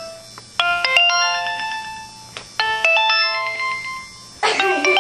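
Mobile phone ringtone playing: a quick run of bright electronic notes stepping upward and ringing on, repeated about every two seconds, three times.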